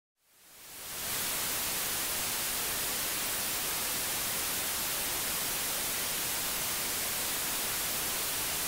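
Analogue TV static: a steady, even hiss that fades in over the first second after a brief silence.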